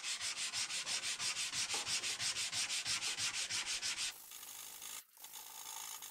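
Hand sanding: sandpaper on a shaped wooden block rubbed quickly back and forth over the hollow centre of a damascus steel chef knife blade, about five strokes a second. The strokes stop about four seconds in, leaving a low hiss.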